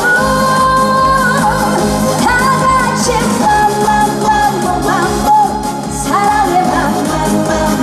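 A woman singing a fast trot dance song live over an amplified backing track with a steady beat.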